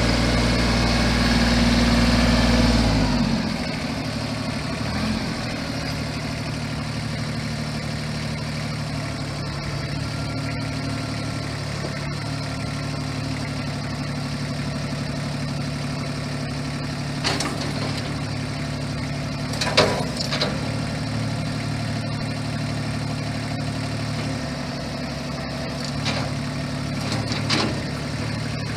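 Mahindra 2614 4WD compact tractor's diesel engine running at higher revs, dropping about three seconds in to a steady lower speed as the tractor drives slowly. A few short knocks come through about halfway through and again near the end.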